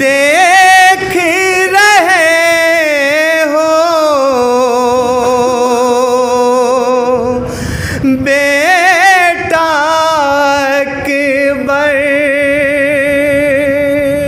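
A man singing a noha, a Shia mourning lament, solo into a microphone, in long wavering held phrases with one short break about eight seconds in.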